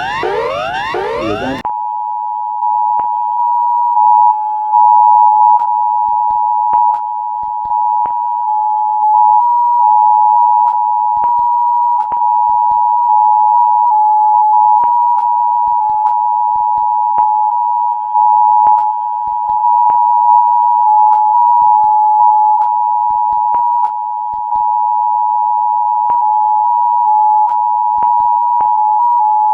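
Simulated emergency alert tones: a couple of seconds of rapid rising electronic sweeps, several a second, that cut off abruptly into the steady two-note attention signal of the Emergency Alert System, held unbroken with its loudness stepping up and down.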